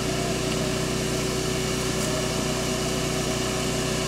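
Bee vacuum's motor running with a steady hum while its hose is worked at the comb to suck up bees.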